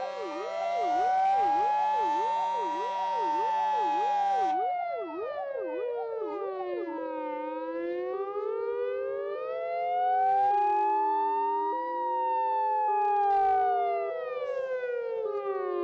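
Several fire engine sirens sounding at once: a slow wail rising and falling about every nine seconds, a fast yelp over the first few seconds, and a hi-lo two-tone alternating from about seven seconds on. A steady horn blares over them for the first four and a half seconds.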